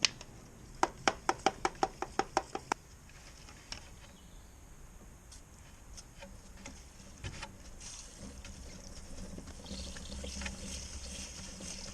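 Hand sprayer of paraffin being worked: a quick run of about ten clicks in the first few seconds, then liquid spraying onto the motorcycle chain as a hiss that grows near the end.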